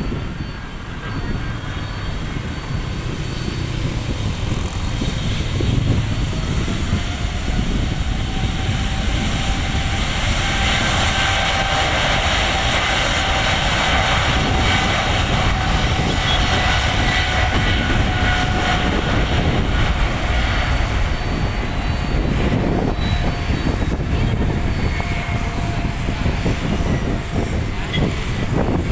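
Boeing 777 twin jet engines spooling up to takeoff power as the airliner starts its takeoff roll. A steady, loud jet engine noise builds over the first several seconds, with a thin whine that comes in about six seconds in, rises slightly and then holds.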